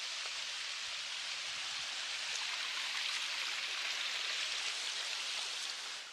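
A small forest stream rushing and splashing over rocks: a steady hiss of running water that drops off near the end.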